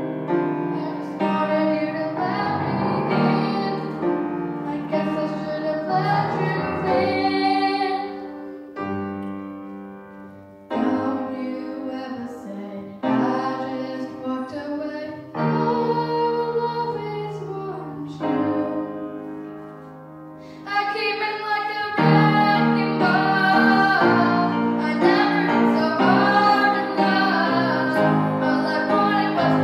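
A young girl singing while accompanying herself on a grand piano. The music softens twice, with the voice briefly dropping out near the middle, then grows louder and fuller for the last third.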